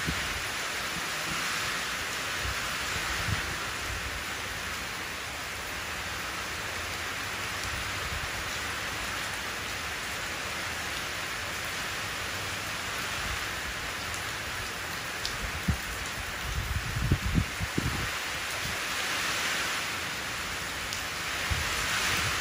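Steady rain falling into a shallow puddle on pavement: a dense, even hiss of drops splashing on water. About three quarters of the way in, a second or two of low thumps rises above it.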